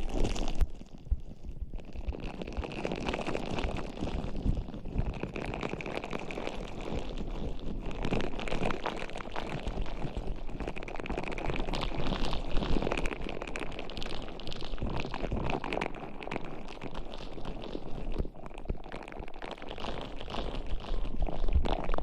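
Close-miked ASMR trigger sounds: dense, continuous crackling and rustling right at the microphone, with some brief louder pops.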